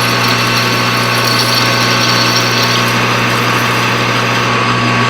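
Metal lathe running steadily with a constant hum and whine as a boring bar cuts out the inside of the workpiece.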